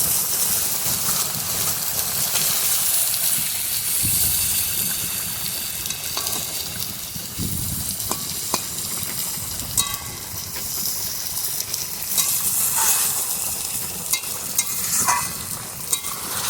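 Curry boiling and sizzling in a pan as fish is stirred in, with a steady hiss and a spatula clicking and clinking against the pan now and then.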